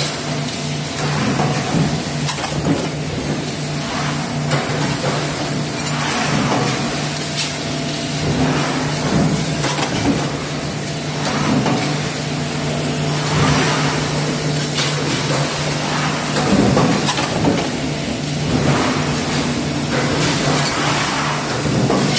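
Mechanical stamping presses running in a press shop: a steady machine hum with irregular sharp clanks and thuds every second or two as the presses stroke.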